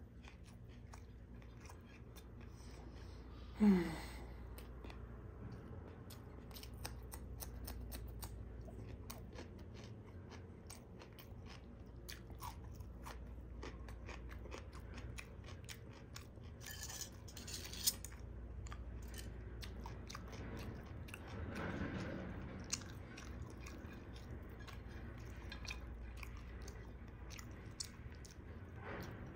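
Close-up chewing of a mouthful of beef biryani, with wet lip smacks and small mouth clicks throughout. A short, loud vocal sound sliding in pitch comes about four seconds in, and a softer one around twenty-two seconds.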